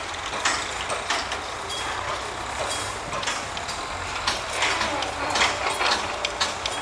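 Construction-site noise: irregular sharp clanks and knocks, a few with a brief metallic ring, over a steady low machinery hum.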